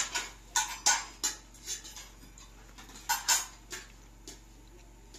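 Spoons and forks clinking against plates as food is served and eaten: a string of short, irregular clinks, busiest in the first second and a half and again about three seconds in.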